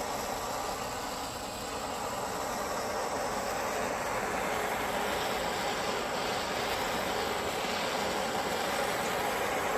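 Handheld propane torch burning steadily with a continuous rushing hiss as its flame is played over a pine board, scorching the surface.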